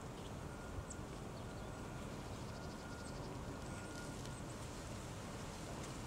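Steady outdoor background hiss with a few faint, thin, high-pitched bird chirps, and a short run of faint quick ticks about halfway through.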